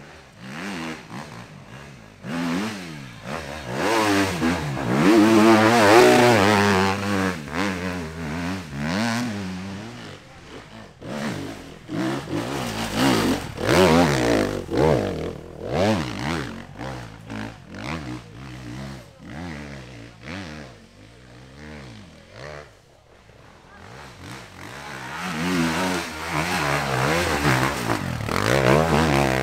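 Enduro dirt bike engine revving up and down again and again, rising and falling in pitch, loudest about five seconds in and again near the end.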